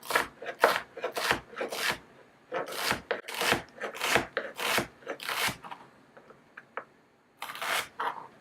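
A knife slicing a fennel bulb thinly on a chopping board: a run of crisp cutting strokes about two a second, a short pause, then one more cut near the end.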